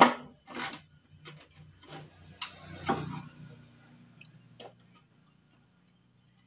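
Tools and metal parts knocking and clinking while a scooter's steering head is worked on: about seven separate sharp knocks in the first five seconds, the first the loudest, with a faint steady hum underneath.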